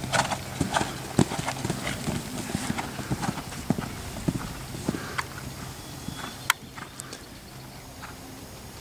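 Hoofbeats of a grey horse cantering on sand arena footing, a quick run of thuds that thins out and grows quieter over the second half. A single sharp click stands out about six and a half seconds in.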